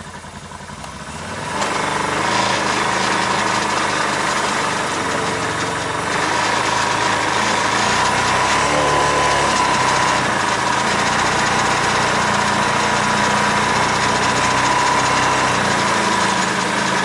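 Vehicle engine picking up about a second and a half in, then running steadily under load as it drives over rough, wet ground.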